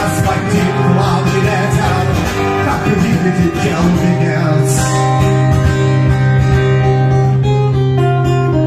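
Live music: an instrumental passage with an acoustic guitar strumming over sustained chords.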